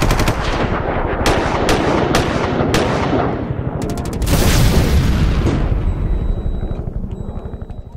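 Intro sound effect of rumbling bangs and blasts: several sharp cracks between one and three seconds in, then a bigger blast about four seconds in that fades out slowly.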